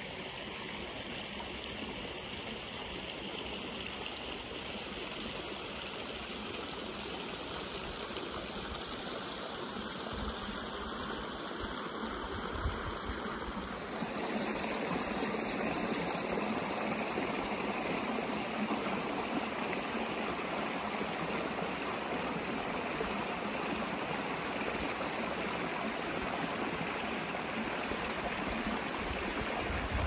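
Shallow mountain stream flowing over stones: a steady rush of running water that gets a little louder about halfway through.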